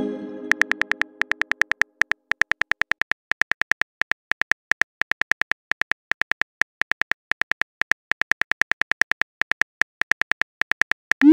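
Simulated phone-keyboard typing clicks from a texting-story app, a quick irregular run of short taps as a message is typed letter by letter. A pitched chime fades away in the first second or so, and a short rising send swoosh comes at the very end.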